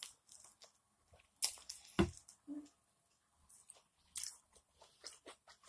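Close-up eating sounds of a person biting, tearing and chewing a piece of grilled steak held in the hand: scattered wet smacks and clicks, with a louder thump about two seconds in.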